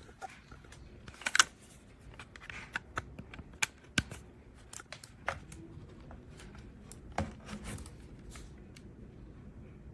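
Handling noise: irregular sharp clicks and taps of hard objects being picked up and moved about, with the loudest clicks about a second and a half in and again about four seconds in.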